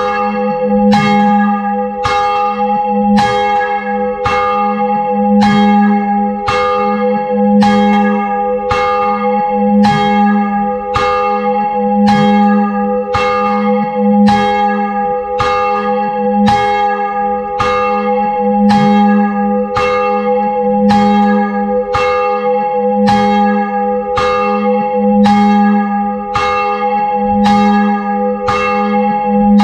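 A ring of six church bells, tenor 9 cwt in A♭, rung full-circle and heard close up from inside the bell chamber: a steady, unbroken run of loud strikes, each bell ringing on into the next so that the notes overlap in a continuous hum.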